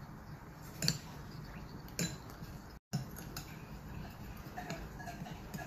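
Metal spoon stirring a thin slurry of gypsum powder and cornstarch in a small ceramic bowl, with light clinks of the spoon against the bowl. Two louder clinks come about one and two seconds in.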